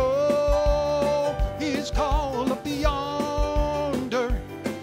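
Gospel music played on a Yamaha stage piano: long held notes that waver in pitch, over a steady low beat.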